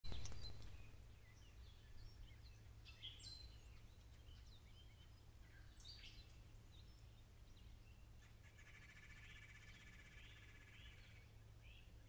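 Faint songbird chirps and calls scattered throughout, with a rapid trill lasting about two seconds near the end; a sharp click at the very start and a steady low hum underneath.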